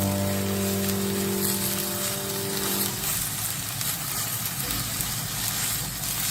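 Steady hiss of rain under a sustained background-music chord; the chord fades out about three seconds in, leaving the rain alone.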